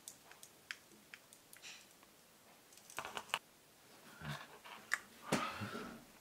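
Scattered soft clicks and handling noises of small parts of a Zeiss Vario-Tessar FE 16-35 lens's inner lens group being fitted together by hand, busier about three seconds in and again near the end.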